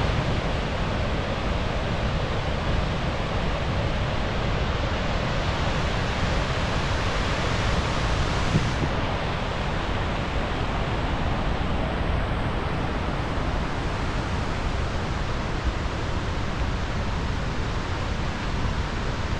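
Gullfoss waterfall on the Hvítá River: a steady, even rush of heavy falling water, with the highest hiss dropping slightly about nine seconds in.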